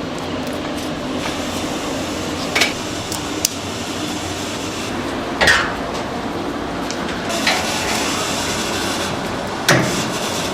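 Kitchen clatter: about five sharp clanks of metal pans and utensils over a steady rushing background.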